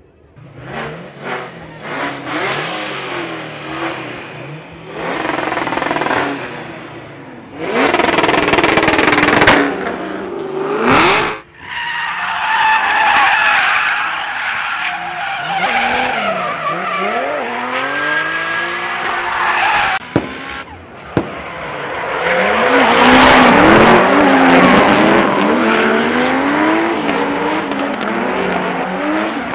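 Performance car engines revving hard, their pitch rising and falling over and over, with tires squealing and hissing through burnouts and drifts. There is an abrupt break about eleven seconds in, and the loudest stretch comes a little after the twenty-second mark.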